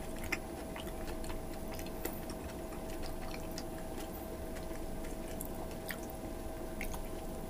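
Close-up eating sounds: scattered soft wet clicks and smacks of chewing and of fingers picking at stewed beef on the bone, over a faint steady hum.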